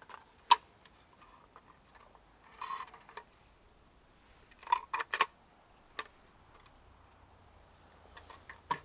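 A handful of sharp clicks and light knocks with quiet gaps between them, the sound of tools or parts being handled. A few come close together about five seconds in. The saw is not running.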